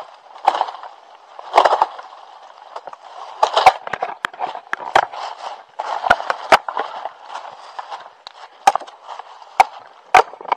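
Dry bamboo leaves and branches rustling and crackling as bamboo is handled on the leaf-littered ground, broken by several sharp cracks and knocks of bamboo.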